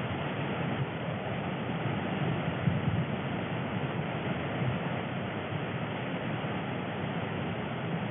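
River rapids rushing steadily: a continuous churning roar of white water with no distinct knocks.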